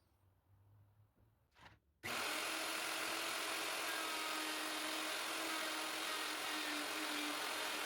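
A woodworking power tool on wood starts abruptly about two seconds in and runs steadily with a constant hum under a loud hiss, after a couple of faint knocks.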